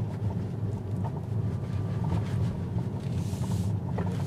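Tyre and road rumble inside a Tesla electric car's cabin as it rolls over a rough, potholed road, a steady low drone with no engine sound. A brief hiss about three seconds in.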